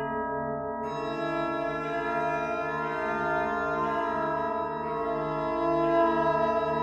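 Background music of sustained organ-like chords over a low note that pulses about twice a second; more tones join about a second in.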